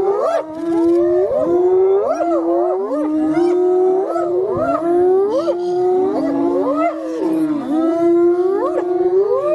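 Several animals howling and yelping together, with many overlapping drawn-out calls that swoop up and down in pitch.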